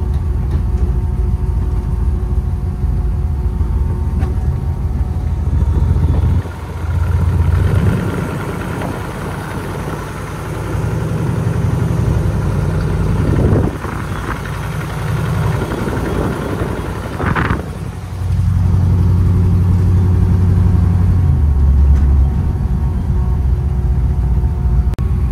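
The 454 cubic-inch V8 of a custom 1951 Chevrolet panel truck running while the truck drives, with a deep low rumble. The engine note eases off and picks up again a few times.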